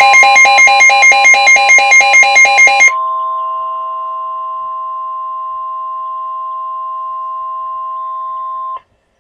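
Emergency Alert System alert tones announcing a severe thunderstorm warning: a rapidly pulsing electronic beep over a steady tone, changing about three seconds in to a steady multi-tone attention signal that holds for about six seconds and then cuts off suddenly.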